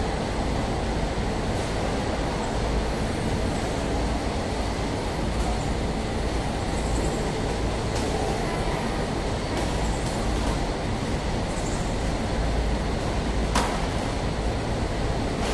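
Steady mechanical hum and rattle of a chili paste jar filling and capping line with its conveyors running, with a sharp click near the end.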